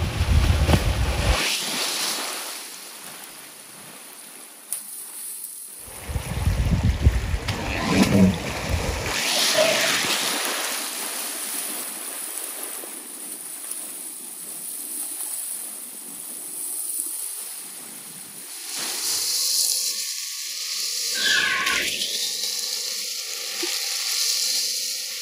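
River water rushing and splashing, with gusts of wind buffeting the microphone at the start and again from about six to nine seconds in.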